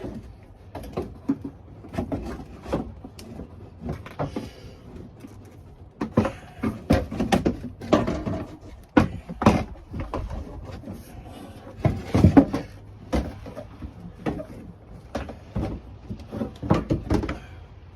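Plastic front bumper cover of a Jeep Patriot being handled and fitted back onto the car: irregular knocks, clacks and scrapes, with the loudest thumps about midway.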